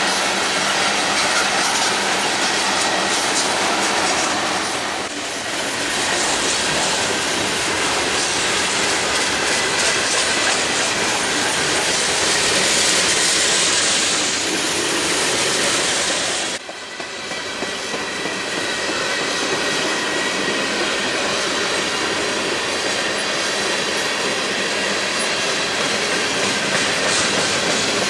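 Freight cars of a slow-moving manifest train rolling past: steady wheel and rail rumble with clickety-clack over the rail joints and a faint high wheel squeal. The sound breaks off briefly about two-thirds of the way through.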